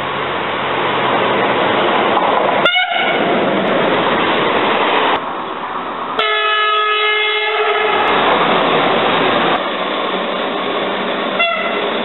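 Trains passing close by with steady rolling noise, and train horns sounded by the drivers as greetings: a short toot about three seconds in, a multi-tone horn blast lasting about a second and a half midway, and another short toot near the end.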